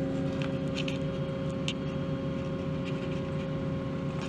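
Steady hum and rumble of a cable ferry's machinery as it pulls itself along its cables, heard from inside the closed cabin through a DSLR's built-in microphone, with a few faint ticks over it.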